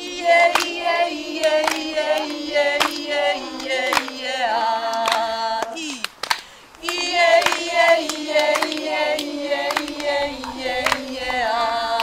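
A woman and a group of children singing a short repeated syllable pattern together, stepping up and down in pitch, while clapping along to a regular beat. The singing breaks off for about a second near the middle, then starts again.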